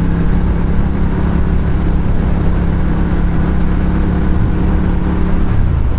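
Ducati Diavel's L-twin engine running at a steady cruise under a constant rush of wind and road noise. A little before the end the engine note drops, as when the throttle is eased off.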